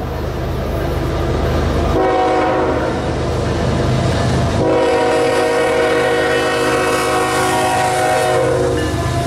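Diesel freight locomotive sounding its air horn for a grade crossing: a chord of several tones held about two and a half seconds from about two seconds in, then a longer blast of about four seconds. The locomotive's low engine rumble runs underneath.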